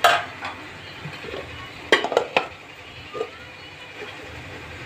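Metal lid and pan clanking and clinking as a lid is set over chicken being smoked with hot charcoal. A sharp clank comes at the start, a quick run of three clinks about two seconds in, and one softer clink a second later.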